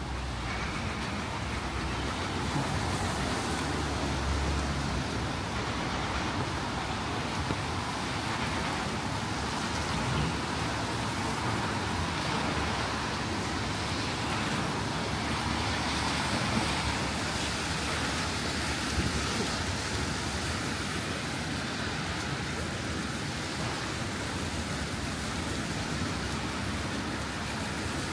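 City street traffic on wet roads: a steady hiss of car tyres on wet pavement and passing cars, with a low rumble of a vehicle going by about four seconds in.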